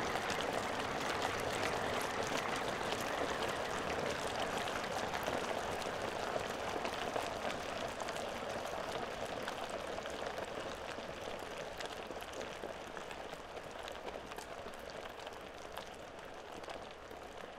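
Covered self-heating hot pot bubbling and crackling as its heating pack reacts with the water and boils it: a dense fizzing of many tiny pops that slowly grows quieter.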